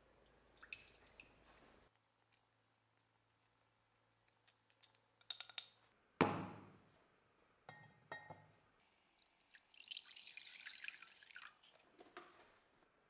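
Small clinks as pliers lift a rusty horseshoe out of a plastic tub of liquid. About six seconds in, a sharp knock as a basin is set down on a wooden workbench. Near the end, water is poured into the basin for about two and a half seconds.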